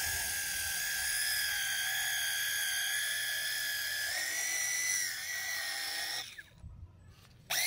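Matco Tools cordless drill spinning a foam polishing pad against a plastic headlight lens to polish out the haze: a steady high motor whine whose pitch rises slightly about four seconds in, stopping about six seconds in.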